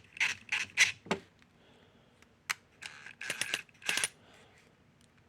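Irregular sharp clicks and rattles of small hard parts being handled, from a replacement cord plug and its terminal screws, in a few quick clusters with short pauses between.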